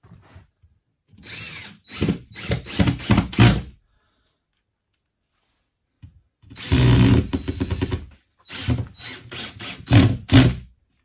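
DeWalt cordless drill-driver driving screws through plasterboard into the timber studs. It runs twice, each time starting with the motor's pitch sliding up then down, then breaking into several short bursts.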